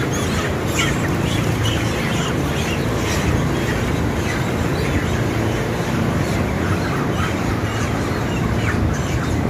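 Broiler chickens squawking, with many short calls scattered throughout as the birds are caught, crated and carried by the legs, over a steady low rumble.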